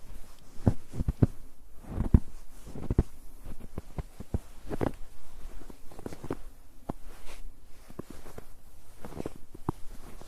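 Footsteps crunching in snow on a snow-covered road, at an uneven pace of roughly one or two steps a second.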